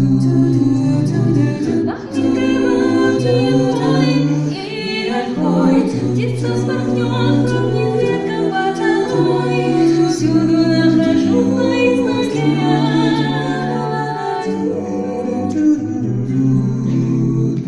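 A vocal ensemble singing in harmony: several voices holding chords over a low bass line that steps from note to note.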